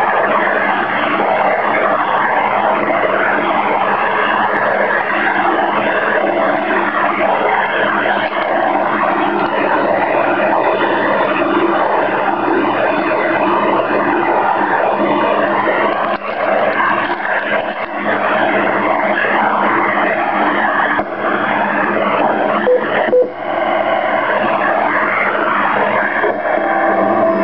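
Icom IC-756PRO III receiver in AM mode putting out steady, dense interference noise from its G5RV antenna that blots out any HF reception while the dial is tuned across the band; the noise is as yet unidentified. About 23 seconds in come two short beeps, the radio's amateur band-edge pips.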